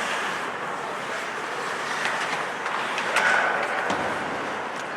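Ice hockey game in a rink: a steady wash of skates scraping on the ice, with a few sharp clacks of sticks or puck about two to three seconds in.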